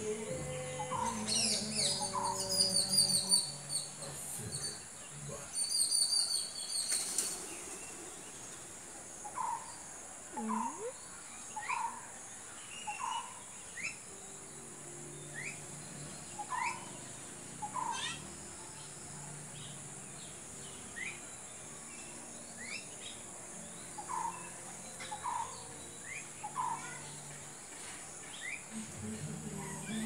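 Parakeets calling: runs of shrill, high screeching calls over the first seven seconds or so, then short chirps every second or two.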